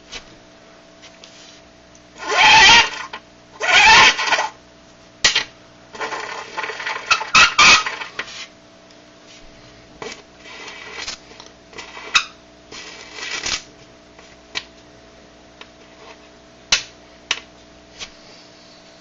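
A metal coin on dry ice, vibrating as the ice turns to gas beneath it and letting out buzzing squeals in bursts. Two loud squeals come about two and four seconds in, a rattling stretch follows around six to eight seconds, and then come shorter chirps and clicks.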